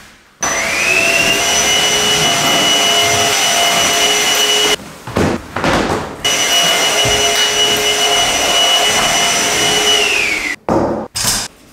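Cordless stick vacuum cleaner running with a loud hiss and a high motor whine. The whine rises as it switches on, cuts out for about a second and a half midway, then falls away as it switches off near the end. A few brief knocks follow.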